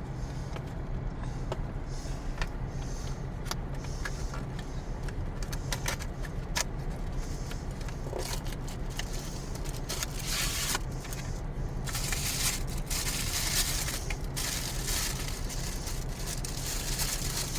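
Toy packaging being opened and crinkled by hand: scattered clicks and rustles that turn into a dense, louder crinkling about twelve seconds in, over a steady low hum.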